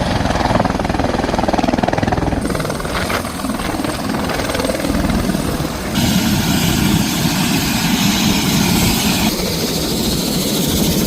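Helicopter in flight: steady, loud engine and rotor noise with a fast low pulsing. Its character changes abruptly about six seconds in and again near the end.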